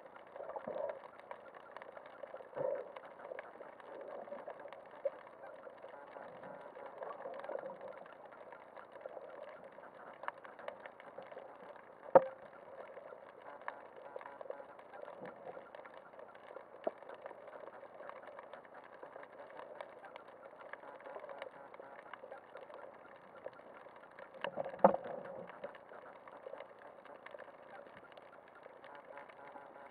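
Muffled underwater noise picked up through an action camera's waterproof housing mounted on a speargun, broken by a few sharp knocks; the two loudest come about 12 and 25 seconds in.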